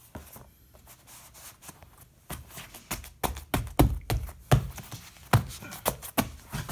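Open hand slapping down interlocking EVA foam floor mats, seating the pieces. An irregular run of sharp slaps, a few per second, starts about two seconds in.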